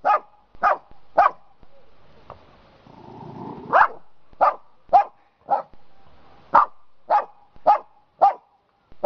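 Small white-and-tan dog barking at a hedgehog: about a dozen short, sharp barks at roughly half-second spacing, with a pause of about two seconds after the first three.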